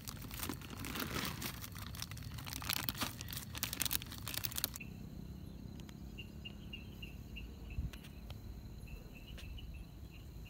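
Dense crackling, rustling noise for the first few seconds, cutting off abruptly about halfway through. After it, night insects chirp in short repeated pulses over a steady high trill, typical of crickets.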